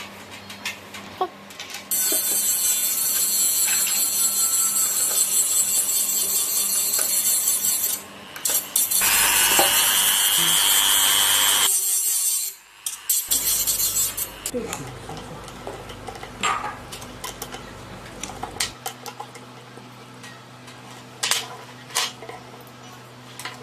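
Mini electric rotary tool running a small cutoff disc through a steel screw: two long stretches of loud, high grinding, the second with a steady high whine. Scattered clicks and knocks follow as the tool and its flexible-shaft attachment are handled.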